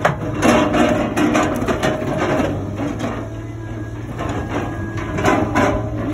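Logs knocking and clunking against one another and the trailer as a Tigercat log loader's grapple sets them onto a log trailer, over the loader's steady engine and hydraulics. The knocks come irregularly, several a second at times.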